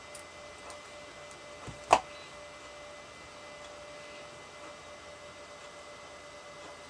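Steady faint electrical hum with a couple of thin steady tones, and one sharp clack of metal scissors about two seconds in.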